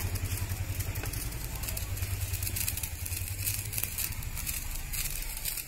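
Hand-held sparkler fizzing and crackling, over a steady low hum.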